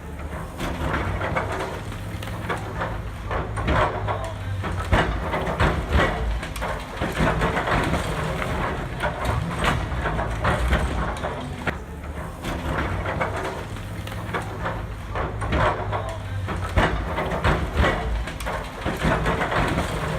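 A heavy construction machine's engine runs steadily with a low hum, under frequent irregular clanks, knocks and crunching, like machinery working a demolition or construction site.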